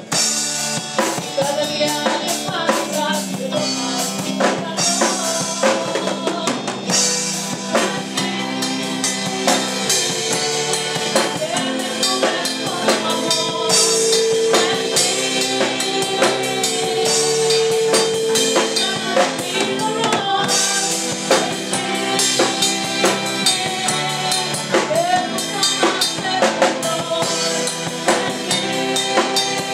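Band music with a full drum kit, bass drum, snare and rimshots, keeping a steady beat under melodic instruments.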